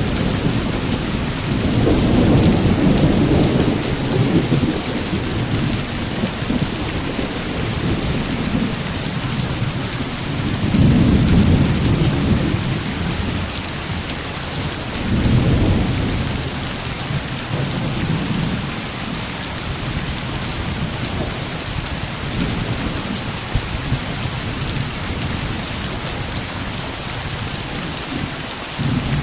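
Heavy rain falling steadily, with rolls of thunder swelling and fading several times: around two seconds in, about eleven seconds in, about fifteen seconds in and again near the end.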